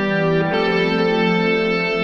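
Background music: held chords, with a change of chord about half a second in.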